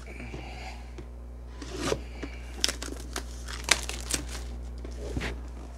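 Plastic shrink wrap being torn and crinkled off a sealed trading card box, in a string of sharp crackles and clicks.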